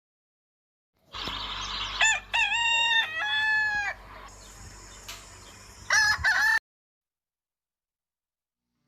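A rooster crowing: one full multi-part cock-a-doodle-doo, then the start of another crow that cuts off abruptly.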